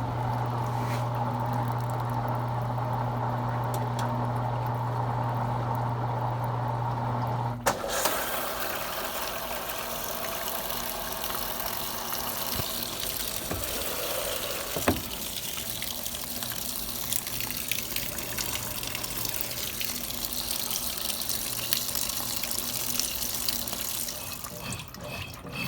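Consul Cargo 8 kg washing machine: a steady electric hum cuts off with a click about eight seconds in, and water then runs steadily into the machine as it fills.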